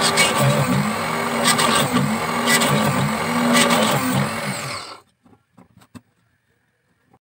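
Small bench drill press running while it bores holes in a thin bamboo strip, its motor pitch wavering and a short burst of cutting noise each time the bit bites, about once a second. The sound stops abruptly about five seconds in, leaving a few faint clicks.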